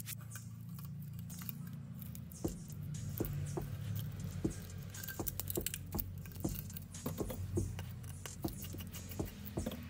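Irregular light clicks and taps of small tools and parts being handled on a phone being worked on, over a low steady hum.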